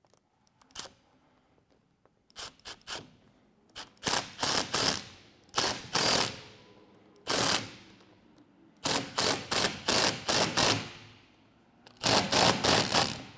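Cordless impact driver running in a series of short bursts, each a rapid rattle of blows, as it tightens the screw of a worm-gear hose clamp onto a sight-gauge hose over a barbed elbow.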